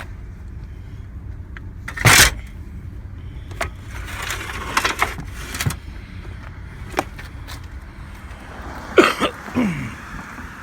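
Metal bed frames clanking and knocking as they are handled and loaded into the back of a minivan, with one loud clank about two seconds in, a run of knocks in the middle and a short scrape near the end.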